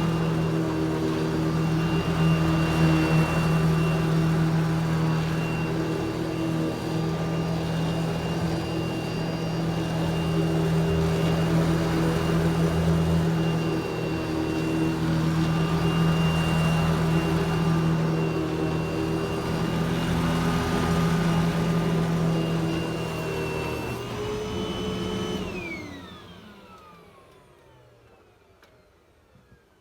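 Eureka Smart Vac vacuum cleaner running steadily with a whine. About 24 seconds in its pitch rises briefly; then the motor is switched off and spins down, the whine falling away over a few seconds.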